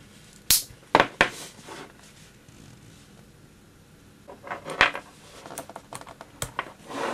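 Sharp clicks, knocks and clatters of a rechargeable battery pack being taken apart by hand, its plastic casing and cells knocking together, in irregular bursts with a quiet stretch in the middle.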